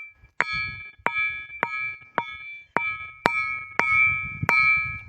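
A ringing rock struck repeatedly with a hand-held stone, about eight strikes roughly half a second apart. Each strike gives a clear, sustained metallic ring, like a struck brass eating plate (gangala) or metal vessel.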